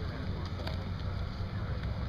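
Wind rumbling steadily on the microphone, with faint voices of people walking close by.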